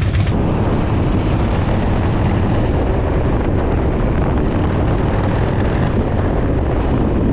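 Motorcycle running under way, a steady dense engine rumble mixed with heavy wind rush on the microphone.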